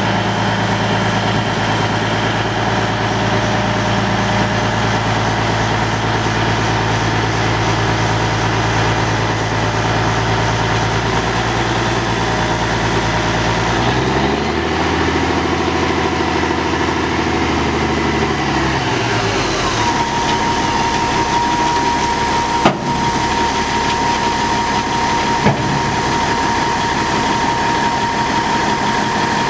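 Caterpillar 3406 inline-six turbo diesel in a Peterbilt 379 dump truck idling steadily, its speed rising and falling once about halfway through as the dump bed's hoist is worked. A steady high whine joins the engine in the second half, with two short clicks.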